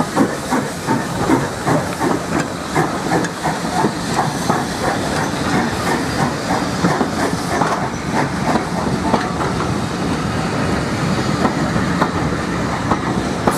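Steam locomotives 263 (SECR H class 0-4-4T) and 592 (SECR C class 0-6-0) double-heading a departing train. Their exhaust chuffs come regularly, about three a second, and fade over the first eight seconds or so. Under and after them the coaches roll past with a steady rumble and clicks over the rail joints.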